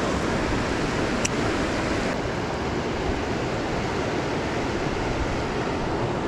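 Fast river current rushing steadily: an even hiss of flowing water.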